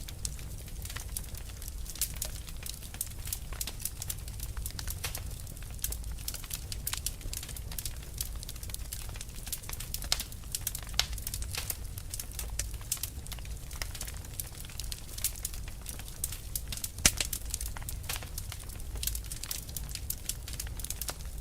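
Fire crackling: a dense, irregular run of sharp pops and snaps over a steady low rumble of the flames, with one louder pop about three quarters of the way through.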